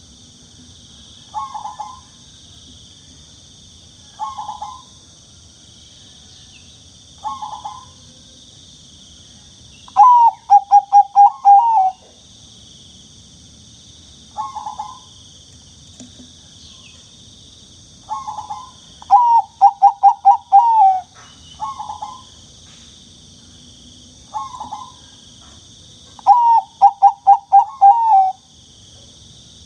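Zebra dove (perkutut bangkok) cooing: short coos about every three seconds, and three times a longer run of five or six quick coos, the full song phrase. A steady high insect trill runs behind.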